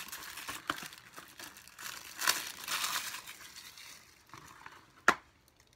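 Plastic shrink wrap being torn and crinkled off a Blu-ray case, in irregular bursts of rustling, then one sharp click about five seconds in.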